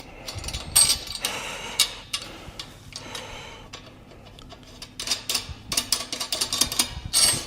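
Steel parts clinking and knocking as a chainsaw carrier is fitted to a tractor loader: scattered clicks at first, then a quick run of clanks in the second half.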